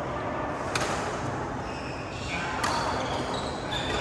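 Badminton rackets hitting a shuttlecock in a rally: two sharp hits about two seconds apart.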